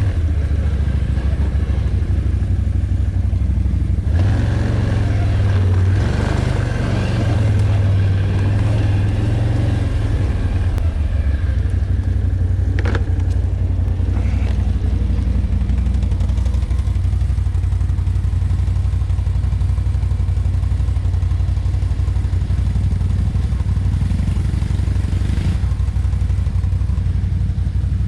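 ATV engine running steadily while riding a trail, with a single sharp knock about halfway through.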